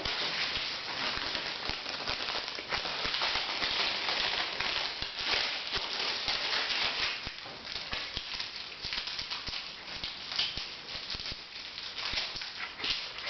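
Wood fire crackling: a steady hiss full of small, irregular snaps and pops.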